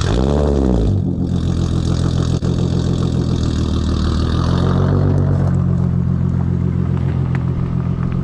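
Volkswagen Golf GTI (Mk4) engine just after starting: the revs rise and fall once at the very start, then settle into a steady idle.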